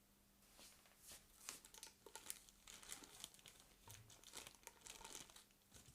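Faint, irregular crinkling and light clicks, as of something being handled.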